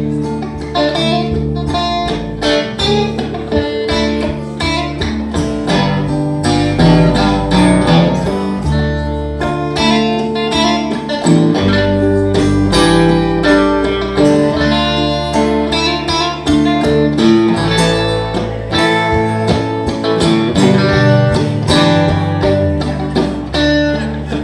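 Live band playing an instrumental break on guitars, acoustic and electric, picking notes over a low bass line, with no singing.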